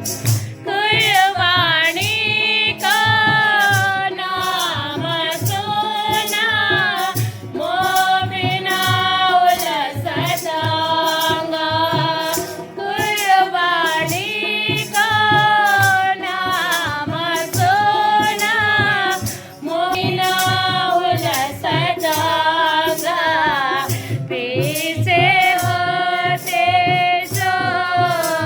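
Devotional song sung by a group, women's voices leading, with a steady beat of small percussion under the melody.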